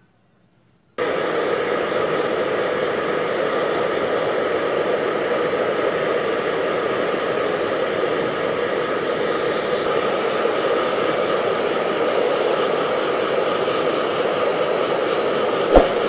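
Hair dryer switched on about a second in and blowing steadily, drying a freshly bathed parrot's wet feathers. A short click sounds near the end.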